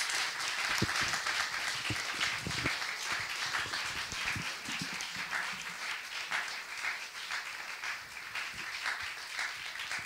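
Audience applauding after a spoken-word performance: dense clapping that slowly thins out and fades. A few dull low thumps sound in the first half.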